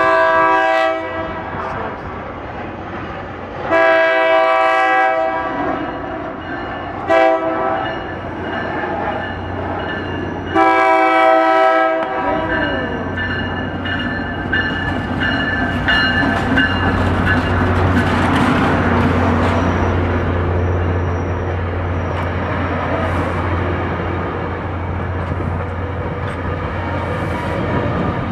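Tri-Rail diesel locomotive sounding its multi-note horn four times, long, long, short, long: the standard grade-crossing signal. Then the locomotive's diesel engine drones and the wheels of the double-deck coaches rumble and clatter on the rails as the train passes close by.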